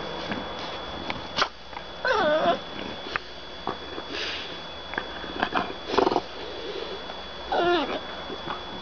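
French bulldogs at play, one giving two whiny, wavering grumbles, the first about two seconds in and the second near the end, with short breathy noises and small clicks between.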